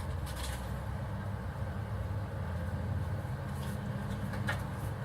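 Steady low background rumble, with a couple of faint light clicks from the folding multi-tool being handled, one about half a second in and one near the end.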